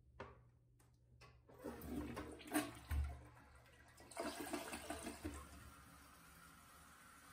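Toilet flushed with a dual-flush push button on the cistern: a few clicks, then water rushing into the bowl in two loud waves, easing into a steady hiss.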